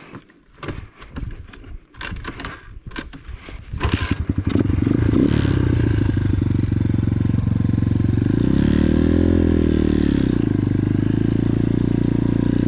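X-Pro Titan 250cc dirt bike's single-cylinder four-stroke engine starting about four seconds in after a few seconds of scuffs and clicks, then running loudly and steadily. Around nine seconds the engine revs up and back down once as the bike pulls away.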